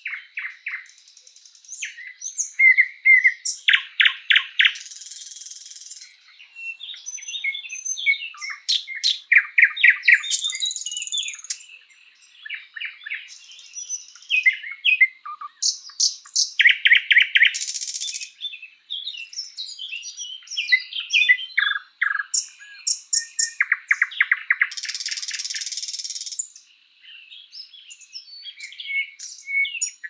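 Thrush nightingale (sprosser) singing: loud phrases of fast repeated clicking notes and rattles, some with buzzy high stretches, broken by short pauses between phrases.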